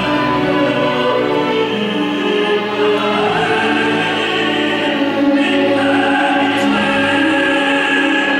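Operatic tenor singing in full voice with orchestral accompaniment, the voice climbing in steps to a long held high note in the second half.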